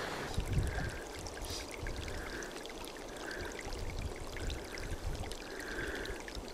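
Water trickling softly, with a gurgle recurring about once a second, over a low rumble of wind on the microphone.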